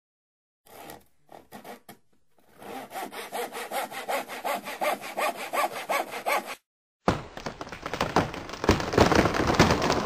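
Hand saw cutting wood: a few separate strokes, then a steady run of about four strokes a second that stops abruptly. After a short gap, a dense, thick sound starts and grows louder.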